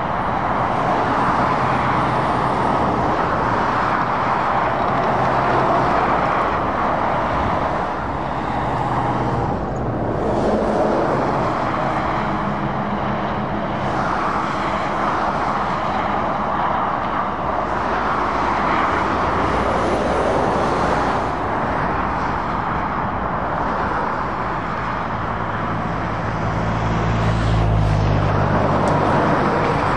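Dual-carriageway traffic passing: a steady rush of tyre noise from cars and heavy lorries, with the low hum of lorry diesel engines rising and fading as they go by. A heavy lorry's engine grows loudest near the end as it passes close.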